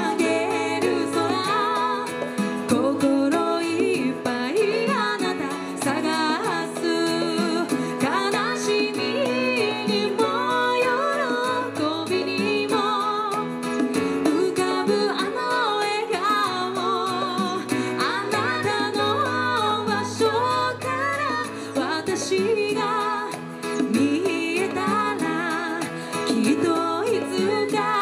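Female voices singing an Okinawan song live over plucked-string accompaniment, a slow melody with wavering held notes.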